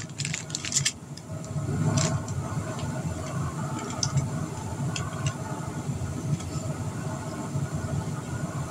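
A steady low mechanical hum, with a few sharp clicks of small objects being handled in the first second and single clicks now and then after.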